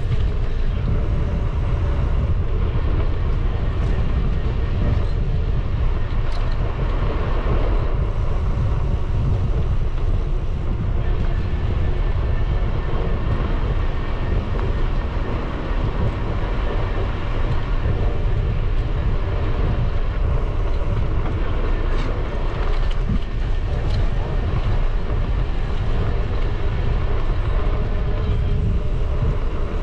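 Wind buffeting the microphone of a moving bicycle's camera, a loud, steady low rumble with no let-up, mixed with the hiss of the tyres on the path.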